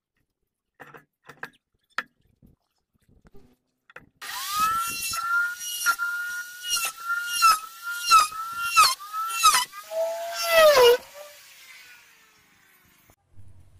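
Handheld electric plunge router starting up and cutting along the edge of a hardwood beam, its high whine dipping in pitch again and again under the load of the cut, then switched off about seven seconds later and winding down. Before it starts, a few light taps and knocks of handling the wood.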